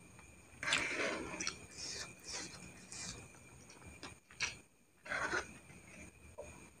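A person eating fried instant noodles (mie goreng) close to the microphone: chewing and slurping mouth noises in irregular bursts, the loudest about a second in.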